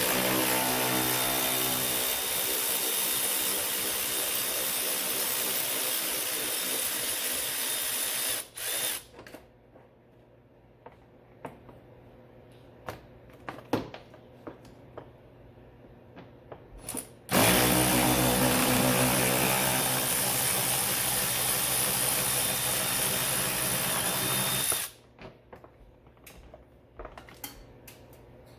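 Cordless power tool spinning a socket on a long extension to back out a 10 mm bolt, running steadily for about eight seconds, stopping, then running again for about seven seconds. Light clicks and knocks of handling come between the runs and after.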